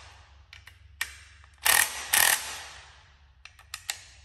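Cordless drill on a low torque setting, run in short bursts to drive the bolts that clamp a lift spacer onto a strut top hat: a brief burst about a second in, then two louder ones close together near the middle, followed by a few light clicks.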